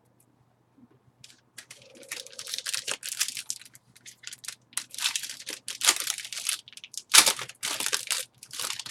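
Trading-card packaging crinkling and tearing in irregular bursts of rustling, as a card pack is opened and its cards handled.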